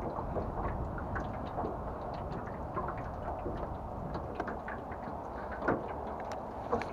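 Breeze noise and small water sounds around a small boat, with scattered light ticks and clicks throughout and two sharper knocks near the end.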